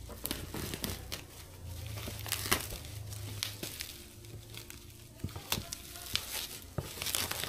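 Packaging being handled while a motorcycle helmet is unboxed: irregular crinkling and rustling of plastic and paper wrapping, with scattered sharp crackles.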